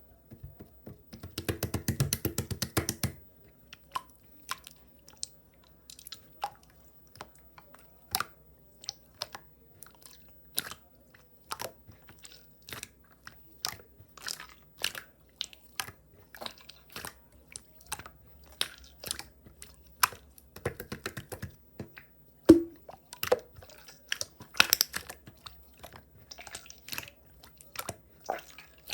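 Clear slime being squished and poked by hand, giving irregular sharp clicks and pops, with a dense crackling stretch about two seconds in.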